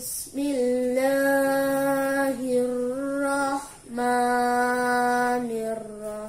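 A boy chanting Quran recitation in the melodic tilawah style, holding two long steady notes with a short breath between them; the second note steps down in pitch near the end.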